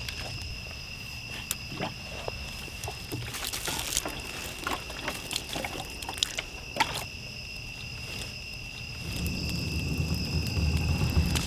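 Night insects, such as crickets, trilling steadily on one high note, with scattered snaps and crackles of dry branches. From about nine seconds in, a low rumble swells up.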